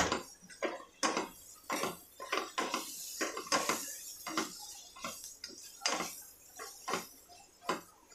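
Spatula stirring and scraping a thick onion masala mixture in a nonstick pan, knocking against the pan about twice a second in an uneven rhythm.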